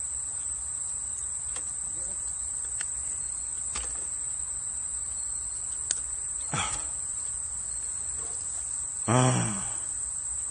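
Insects trilling in a steady, high-pitched chorus from the surrounding grass, with a few faint clicks and a short voiced exclamation about nine seconds in.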